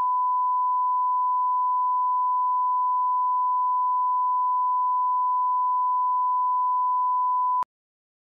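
Broadcast line-up tone with colour bars: a steady 1 kHz reference tone at one unchanging pitch, cutting off suddenly near the end.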